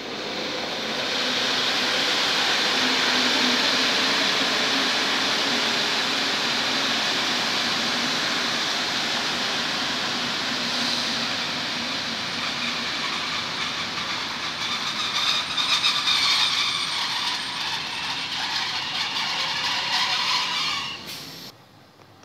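NS Mat '64 electric multiple unit passing close by: a steady rumble of wheels on rail with a low hum. High squealing tones join in during the last few seconds before the sound cuts off suddenly.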